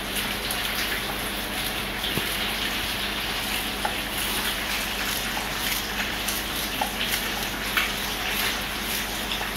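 Fish deep-frying in a pot of hot oil, a steady sizzle, with a few faint ticks over it.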